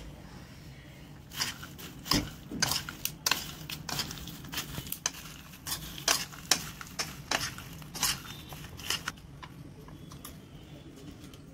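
Two steel spoons tossing crispy fried corn kernels in a bowl: a busy run of irregular clinks and scrapes for about eight seconds, which then stops.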